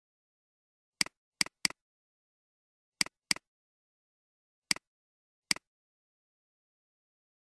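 Computer mouse clicks: seven short, sharp clicks, some in quick pairs, with dead silence between them.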